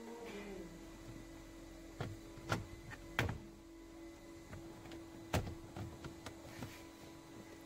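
Plastic dashboard trim panel being handled and pressed into place: a few sharp clicks and knocks, the loudest about three seconds in and again past five seconds, over a steady low hum.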